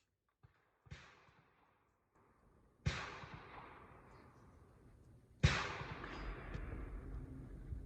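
Three rifle shots, about two seconds apart, each followed by a long echoing decay, the later ones louder.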